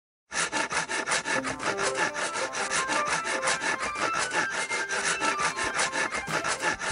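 Rapid, even scraping strokes on wood, about seven a second, with a short tune of single notes running over them. It starts suddenly just after the beginning.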